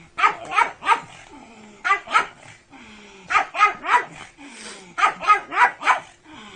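A dog barking in quick volleys of two to four barks, four volleys in all, with a lower gliding whine between them.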